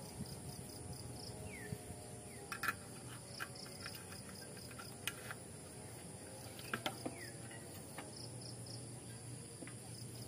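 Insects chirping steadily in the background, with a few sharp metallic clicks and knocks from a portable gas camping stove being handled and set up, the loudest about a third of the way in and again about two-thirds in.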